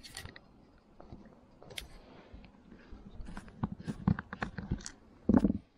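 Screwdriver working the small screw out of the front spinner cone of a Daiwa Goldcast spincast reel: a run of small clicks and scrapes of metal on the screw and plastic, with one louder knock near the end.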